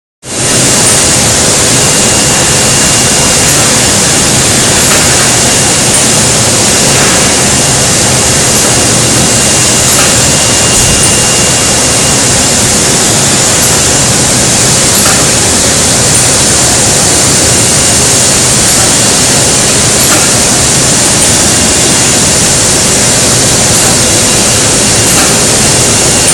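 Rotary soft-tofu cup filling and packaging machine running: a loud, steady mechanical rush with faint clicks every few seconds.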